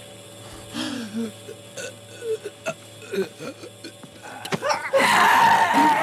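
A woman's short guttural gulping and grunting noises, broken by a few sharp clicks, then from about five seconds in a loud, sustained shriek.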